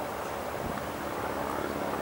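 Light single-engine propeller plane's engine running at low power as it comes in to land, a steady hum over a background hiss.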